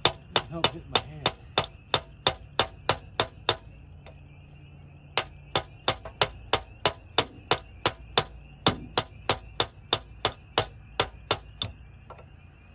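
Hammer striking a drift to drive a piston pin out of a connecting rod on a Continental IO-470 aircraft engine: sharp metallic blows about three a second, a short pause, then another run of blows. The pin is seized in the connecting rod, which is why it has to be hammered out.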